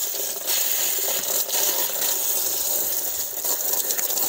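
Garden hose spray hitting the underside of an awning as mud nest material is washed off: a steady hissing spatter with a few scattered clicks.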